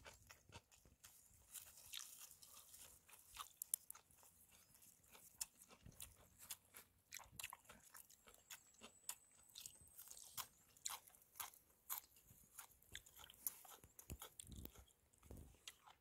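Faint crisp crunching and chewing, many small irregular clicks: a person biting into and chewing raw yeongaja greens.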